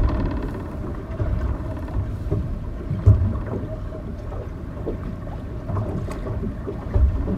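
Wind buffeting the microphone in irregular low rumbles, one strongest about three seconds in, over a faint steady hum.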